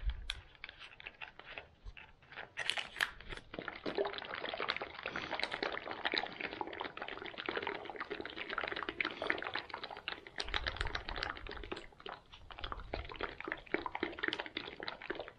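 A freeze-dried smoothie pouch being shaken hard to mix water into the powder: liquid sloshing inside and the packet crackling in a fast, continuous run. The first couple of seconds hold only a few scattered clicks before the shaking starts.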